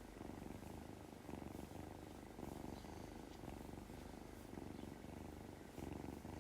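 A kitten purring steadily, the purr swelling and fading roughly once a second with its breathing.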